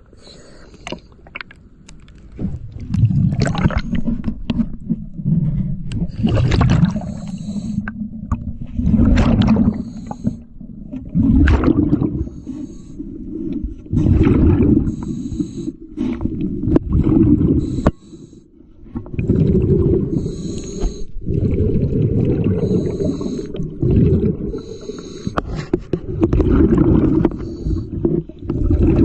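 Scuba diver breathing through a regulator underwater: loud, bubbling exhalations rumble and fade every two to three seconds, with short hisses between them.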